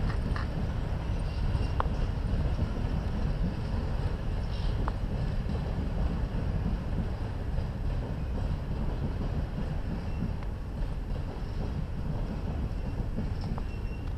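Steady low rumble of a train in a rail yard, with wind noise on the microphone and a few faint clicks.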